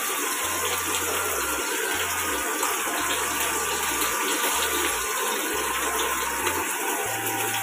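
Putoo (rugda) wild mushrooms sizzling steadily as they fry in hot oil in a kadhai.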